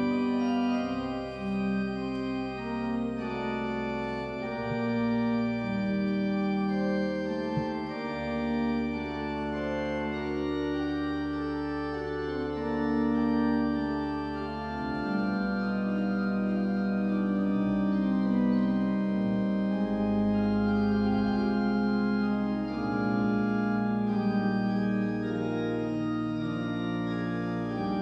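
Church organ playing slow, held chords over a sustained deep bass line, the chords changing every second or two.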